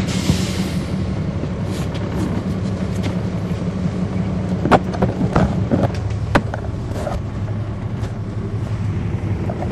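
Cummins ISL9 inline-six diesel of a NABI transit bus running steadily, heard from on board. There is a short hiss at the start and a few sharp knocks or rattles in the middle.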